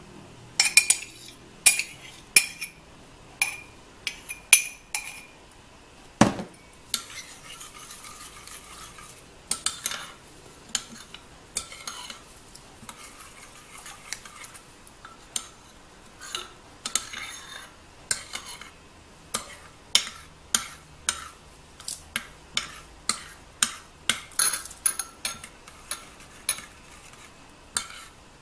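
Metal spoon stirring chia seeds and coconut milk in a ceramic bowl, clinking against the bowl's sides again and again. There is one duller knock about six seconds in.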